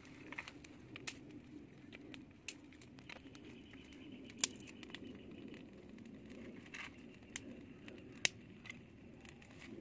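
Small fire of dry twigs crackling with irregular sharp pops, two louder snaps about four and eight seconds in.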